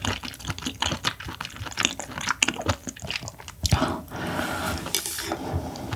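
Close-miked chewing of clam meat: many irregular wet clicks and smacks, with a short steady hiss a little past the middle.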